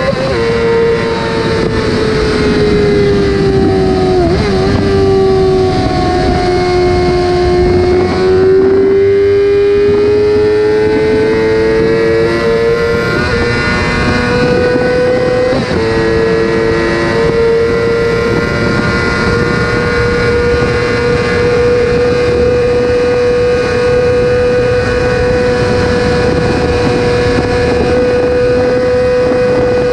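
Yamaha YZF-R6 (RJ15) inline-four sport-bike engine running at high, steady revs; its pitch drops about four seconds in and climbs gradually back over the next several seconds, then holds level.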